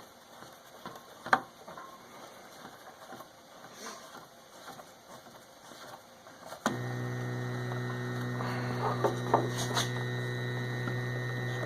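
Homemade 3D printer: light clicks and handling noises, then a steady electrical hum with overtones that switches on abruptly about two-thirds of the way through and holds steady, with a few small clicks over it.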